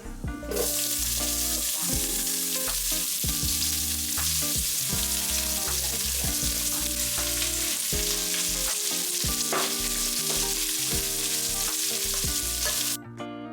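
Chopped onions sizzling in hot oil in a pan with whole spices, being sautéed. The sizzle starts suddenly about half a second in and stops abruptly near the end.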